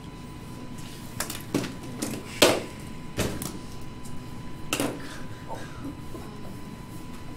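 Several scattered knocks and clicks, about seven in irregular succession, the loudest about two and a half seconds in, over a faint steady high tone.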